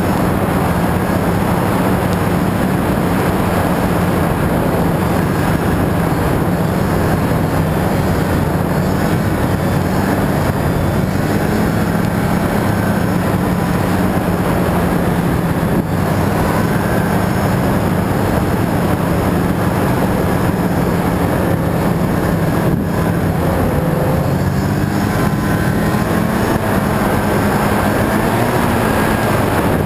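Snowmobile engine running steadily while the sled is under way, its note rising and falling a little in pitch with the throttle.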